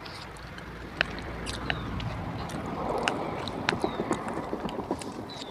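A person slurping and chewing a mouthful of spicy instant noodles, with scattered wet mouth clicks and smacks.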